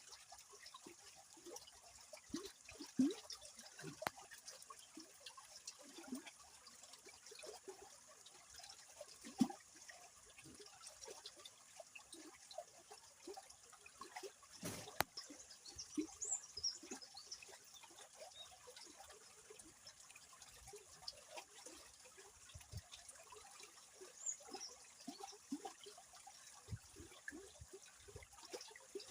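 River water running, trickling and gurgling with many small splashes, fairly faint.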